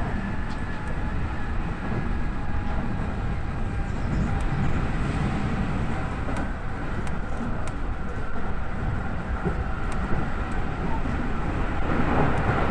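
Hanshin limited express train running, heard from inside the car: a steady low rumble of wheels on track with a faint steady whine and a few light clicks.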